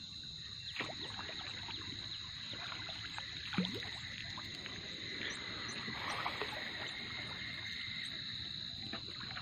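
Wooden dugout boat being pushed along with a long bamboo pole: water swishing around the pole and hull, with a few knocks of the pole against the boat.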